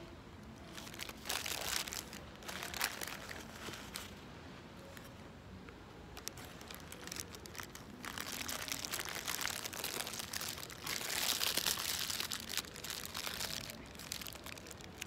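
Paper burger wrapper crinkling as it is handled and folded around the burger, in irregular bursts, the longest and loudest about eleven to twelve seconds in.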